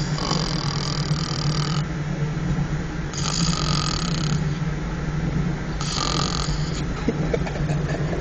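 A person snoring on a moving subway train: three snores, about one every three seconds, over the train's steady low rumble.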